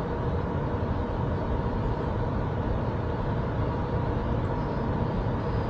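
Steady background rumble with a faint hum, without any distinct events.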